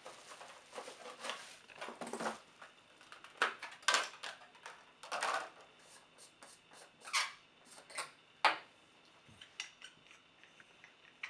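Plastic packing wrap rustling and crinkling in irregular short bursts, with small clicks of handling, as a microscope objective is unwrapped from its small cardboard box.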